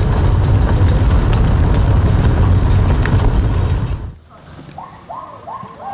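A car driving on a rough dirt road: a steady, heavy rumble of engine, tyres and wind with small knocks and rattles, which stops abruptly about four seconds in.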